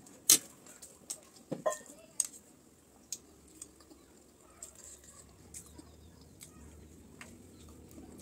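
Metal fork and spoon clinking and scraping against a ceramic plate and bowl while eating: a string of sharp clicks, the loudest about a third of a second in, fewer and fainter after about three seconds.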